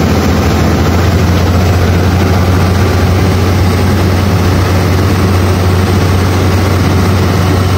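Passenger speedboat's engine running steadily at cruising speed, with a low hum under the rush of the wake spraying up behind the stern.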